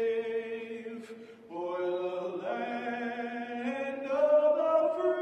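Slow vocal chanting: long held notes that step up and down in pitch, with a short break about a second in.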